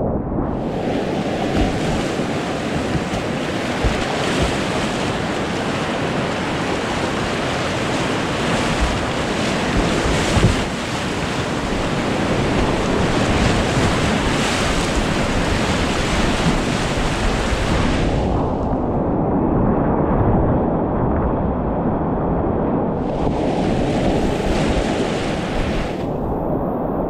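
Whitewater rapids rushing loudly and steadily. The sound turns muffled, its upper range gone, for about five seconds from about two-thirds through, and again briefly near the end.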